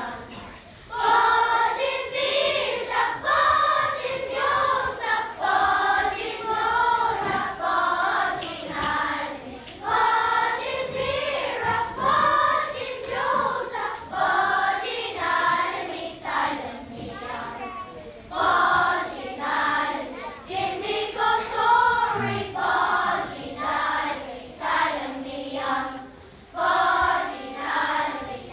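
A children's choir singing together in long phrases, with short breaks between lines.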